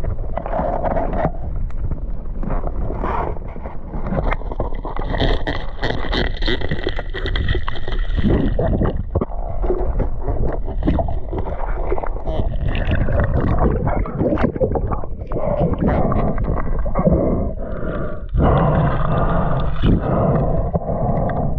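Water noise picked up by an underwater action camera: sloshing and gurgling against the housing, with many muffled knocks and scrapes as the snorkeler moves over the reef.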